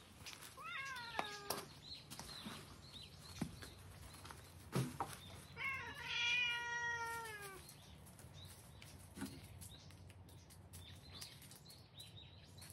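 A domestic cat meowing twice. The first is a short meow falling in pitch about a second in; the second is a longer, louder meow about six seconds in that also slides down.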